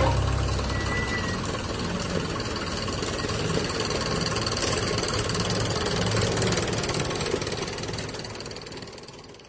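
An old tractor engine idling steadily, fading away over the last couple of seconds. The final chord of the music dies out in the first second.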